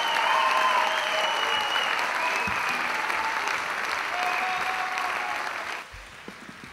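Audience applauding, the clapping dropping away abruptly near the end.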